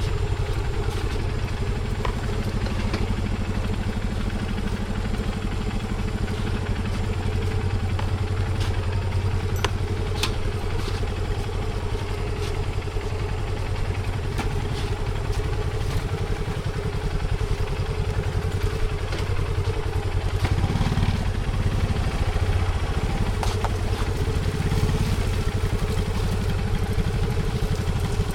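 A small engine running steadily, with scattered clicks and rattles and a few short rises in engine pitch near the end.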